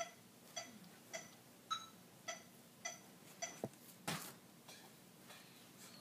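Phone metronome app clicking evenly, about two clicks a second, seven clicks in all, stopping about three and a half seconds in. A sharp knock and a short loud noisy burst follow around four seconds in, then only faint sound.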